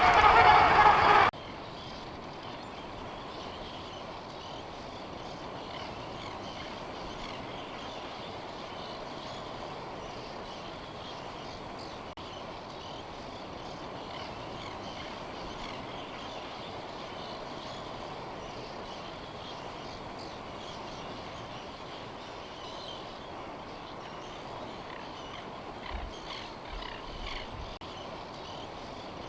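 Steady, distant din of a Cape gannet breeding colony, many birds calling at once. A louder passage cuts off sharply about a second in, and there are a few low bumps of wind on the microphone near the end.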